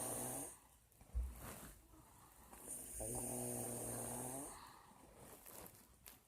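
An elderly woman snoring with slow breaths: one pitched snore trails off just after the start and another comes about three seconds in, lasting about a second and a half. A brief low thump about a second in is the loudest sound.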